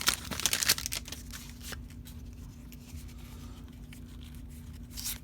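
Foil booster-pack wrapper crinkling as it is torn open, dying down after about a second into faint rustling and handling of the cards under a steady low hum; another short crinkle near the end.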